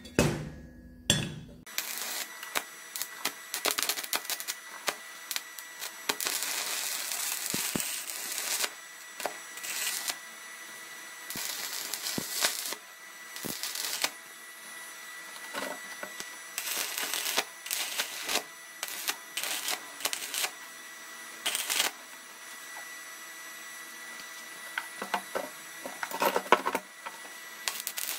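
Stick arc welding on steel: the arc crackles and sputters in short runs with sharp pops and clicks, over a faint steady high tone. In the first second and a half a few knocks come from a steel plate being handled.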